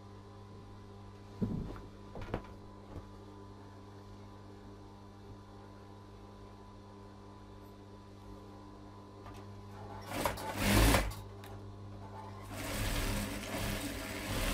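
Industrial sewing machine: its motor hums steadily while fabric is handled with a few soft knocks, then it stitches in two runs, a short one about ten seconds in and a longer one of about two seconds near the end. It is sewing a zipper into a cushion cover.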